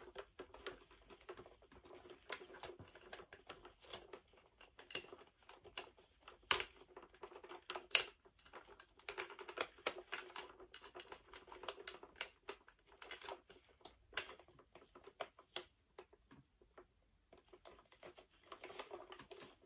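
Hands handling and prodding an animated Santa figure while taking it apart: scattered light clicks, taps and scratches at an irregular pace, a few sharper clicks now and then.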